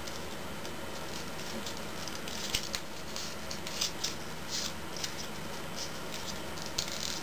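Origami paper rustling and crinkling in short scratchy rustles as fingers make inside reverse folds and press the creases, over a steady background hiss.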